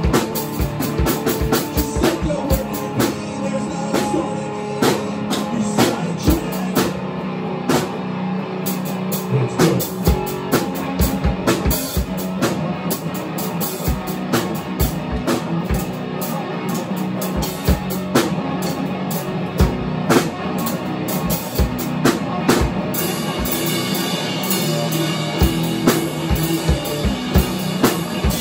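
Electric guitar and a drum kit playing rock together, with steady, driving drum hits under sustained guitar notes; the sound grows brighter and busier at the top near the end.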